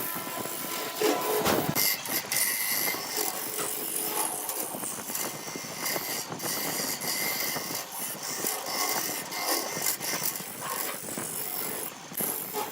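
Wood lathe turning while a cutting tool works the spinning wood: a continuous rough scraping hiss that rises and falls in level.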